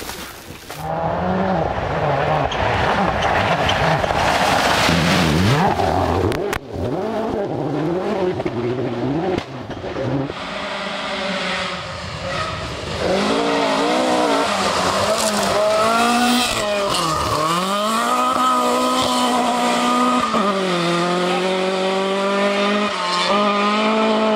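Rally car engines driven flat out, the revs climbing and dropping sharply through gear changes and lifts, in several short clips cut together. In the second half one engine is heard clearly, sweeping up and down, dipping hard once, then holding high revs.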